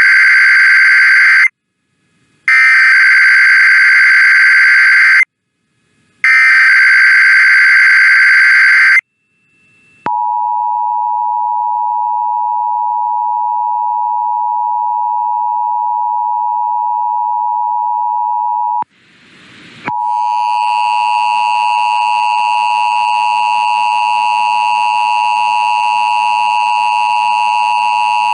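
Emergency Alert System test signalling: three loud bursts of the warbling digital SAME header data, the first already under way. A steady single-pitch alert tone follows for about nine seconds. From about 20 s in comes a harsher attention tone, full of overtones, that holds steady for about nine seconds.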